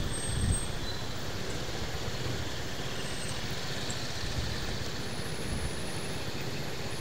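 Steady city traffic noise: cars and motorcycles idling and creeping along in slow, queued traffic, with a brief rise about half a second in.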